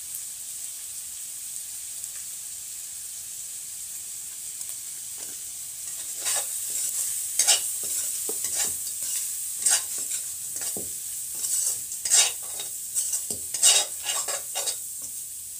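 Turtle meat sizzling as it fries in a steel kadai. From about six seconds in, a metal ladle stirs it with uneven scraping strokes against the pan, roughly one a second.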